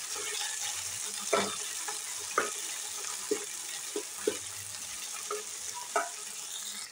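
Peas, chopped tomato and onion sizzling in hot oil in a nonstick kadhai, with a steady frying hiss and a spatula scraping and tapping against the pan at irregular moments as the vegetables are stirred.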